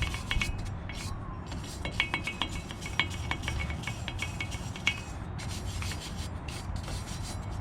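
Brush scrubbing the corroded steel wheel hub of a truck in quick back-and-forth strokes, with a metallic scratching and brief pauses about a second and a half in and about five seconds in. The hub is crusted with rust and being cleaned before the new rotor goes on.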